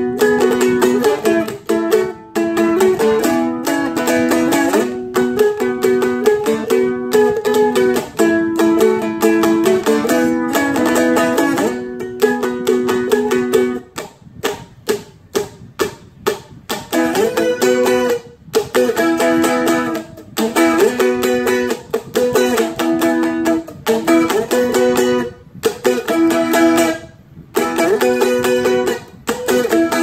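Seagull Merlin M4 four-string dulcimer strummed in quick, even strokes, moving through a repeating pattern of chords. About halfway through, the strumming thins to a few seconds of light, choppy strokes, then full strumming resumes.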